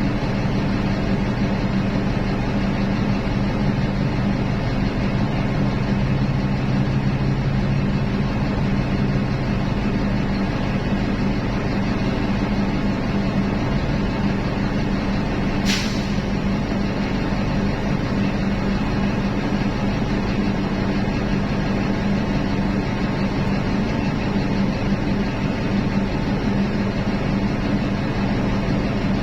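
Large diesel engines of mining machinery, excavators and dump trucks, running steadily with a low drone. A short sharp hiss sounds once about halfway through.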